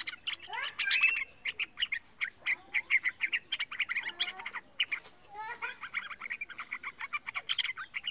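Young yellow-vented bulbul singing: rapid runs of short chattering notes, pausing about halfway through before starting again.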